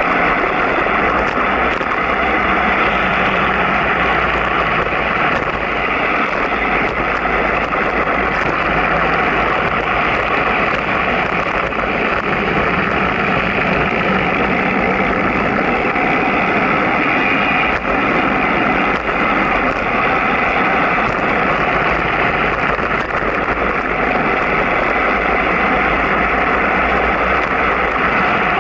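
Steady rush of wind and road noise on a moving camera's microphone during a downhill ride on a mountain road.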